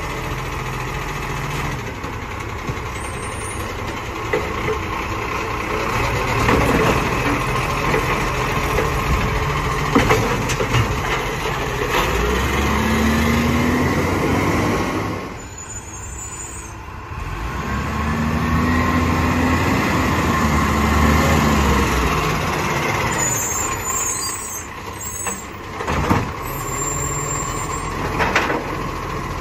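Side-loader garbage truck's diesel engine running, revving up twice while its hydraulic arm lifts and tips wheelie bins into the hopper, with a few sharp knocks of bins against the arm and hopper.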